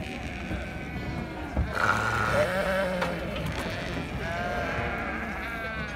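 Sardi rams bleating, several long, wavering bleats, with a clear one about two seconds in and another around four and a half seconds in.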